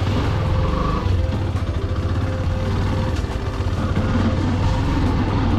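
Motorcycle engine running steadily as the bike rides along, a low throbbing hum.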